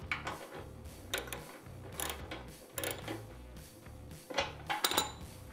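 Hand ratchet and socket clicking in several short runs as a small nut is run down on a rubber bump stop's stud, over background music.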